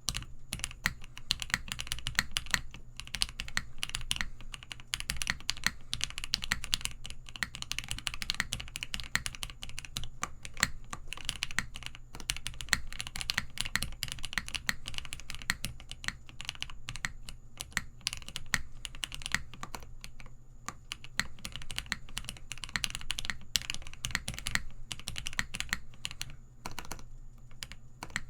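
Fast typing on a Phase One 65 custom mechanical keyboard, built with an aluminium case, case foam, lubed and filmed Gateron Ink linear switches and GMK keycaps: a continuous, quick run of keystrokes, with a short pause about two seconds before the end.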